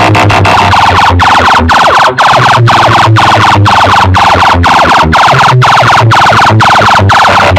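Competition DJ music played through a wall of horn loudspeakers at full volume, with heavy pounding bass. About a second in, the fast pulsing gives way to a siren-like effect of sweeping whoops, about two a second.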